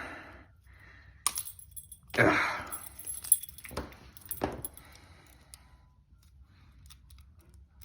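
Metal lockpicking tools and a padlock clinking and rattling as they are handled. There are a few sharp clicks and short clattering rattles, the loudest about two seconds in, then only faint ticks for the last few seconds.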